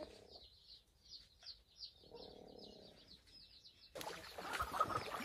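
Free-ranging chickens: a hen clucking in two low, drawn-out calls under a run of high, quick bird chirps. About four seconds in the sound turns louder and busier, with many short clucks.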